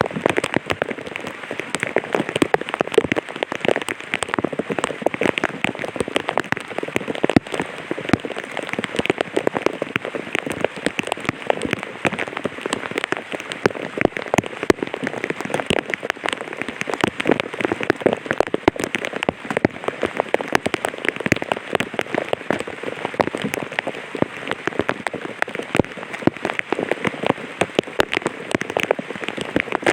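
Light rain pattering steadily on an umbrella canopy: a dense, continuous stream of small drop ticks.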